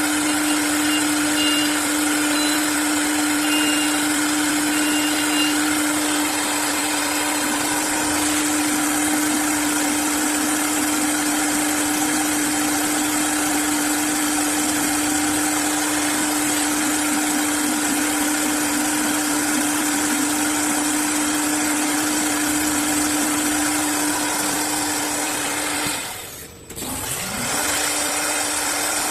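CNC wood-turning lathe running steadily at work, a constant motor hum over the noise of cutting. About 26 seconds in the sound briefly drops away, then comes back.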